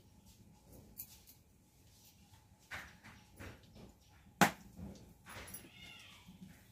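Scattered light clicks and knocks, the loudest a single sharp click a little past the middle, and a short animal cry that rises and falls in pitch near the end.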